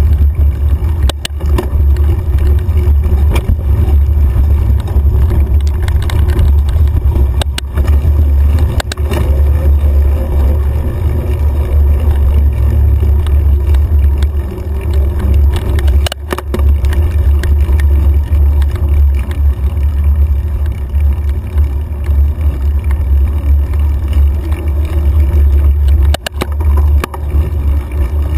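Mountain bike ridden over dirt singletrack, heard through a bike-mounted action camera: a loud, steady low rumble of wind and trail vibration, with a handful of sharp knocks as the bike jolts over bumps.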